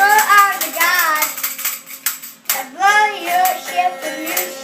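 A child singing high, gliding notes in short phrases, with sharp tambourine hits and shakes throughout and a steady held instrument note underneath.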